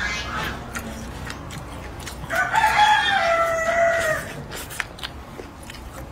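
A rooster crowing once: one long call starting a little over two seconds in and lasting about two seconds, dipping slightly in pitch at the end.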